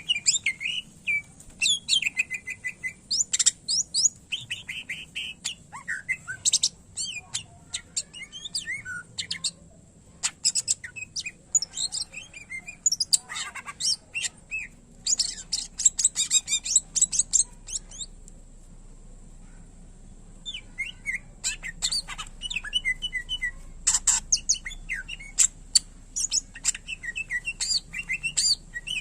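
Greater green leafbird (cucak ijo) singing a fast, varied song of chirps, whistled sweeps and trills, with phrases copied from other birds. It breaks off for a couple of seconds past the middle, then carries on.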